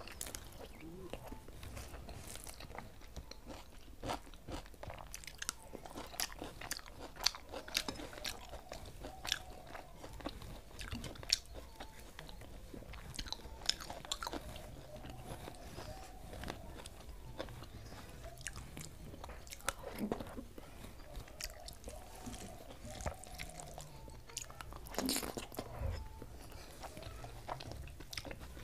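A person chewing a mouthful of rice and omelette eaten by hand, with irregular small clicks and smacks of the mouth, and fingers mixing food on a steel plate.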